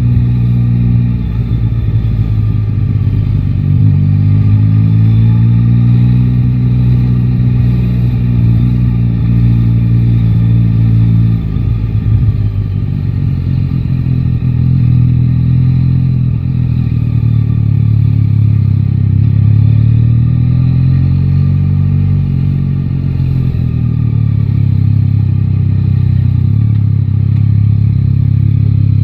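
Yamaha Tracer 9 GT's inline-three engine running under way, its pitch rising and falling with the throttle. It climbs a few seconds in, drops sharply about eleven seconds in, then rises and eases off again.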